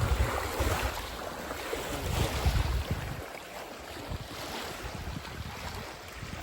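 Wind buffeting the microphone in gusts, a heavy low rumble that eases off about halfway through.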